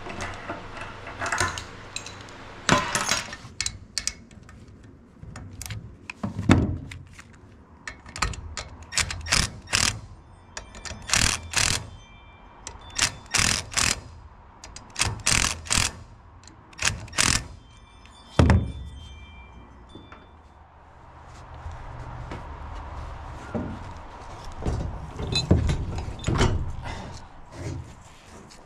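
Scattered sharp metal clicks, clanks and knocks from tools and parts while a replacement electric motor is bolted onto a Warn M12000 winch, thickest through the middle.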